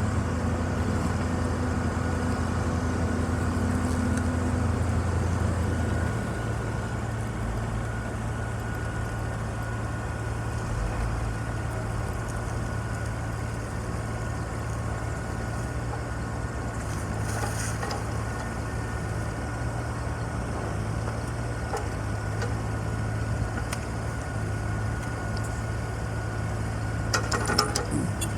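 Yanmar SV17 mini excavator's three-cylinder diesel engine running steadily at idle, its note shifting slightly about six seconds in. Short metallic clatters come twice, midway and near the end.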